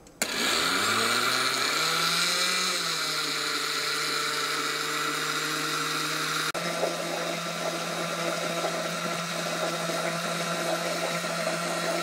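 Glass-jar countertop blender motor switching on and running at speed, beating eggs and sugar into a foam. Its whine climbs in pitch over the first two seconds as the motor spins up, then holds steady.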